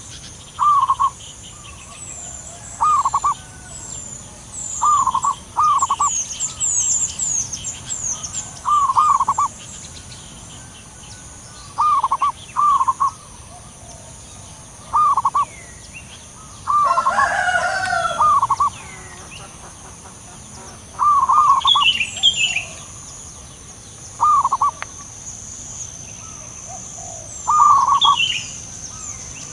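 Zebra doves cooing in short staccato notes, mostly in twos and threes, repeated every one to three seconds as two birds call back and forth. A longer, fuller call comes about 17 seconds in, and small birds chirp high-pitched over a steady high hiss.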